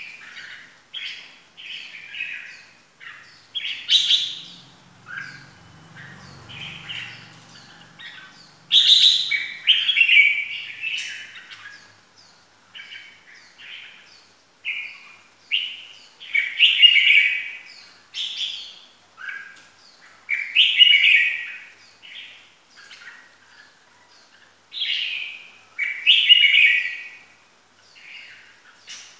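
Red-whiskered bulbul singing: short, loud warbled phrases, each under a second, repeated every second or two with brief pauses between.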